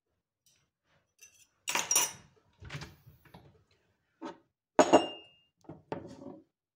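Kitchen dishes and utensils clattering: several separate knocks and clinks, the loudest about two seconds in and again about five seconds in, one leaving a brief metallic ring.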